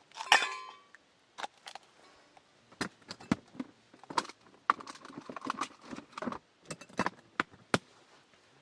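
Metal camp cookware and tableware being handled: one ringing clank near the start, then a run of irregular clinks and knocks.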